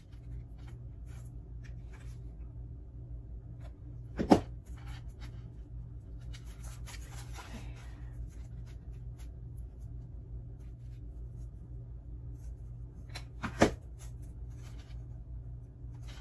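Hands handling plastic Easter eggs on sticks and pressing them into a foam base: faint rustling and ticks, with two sharp knocks about four seconds in and again about nine seconds later, over a steady low electrical hum.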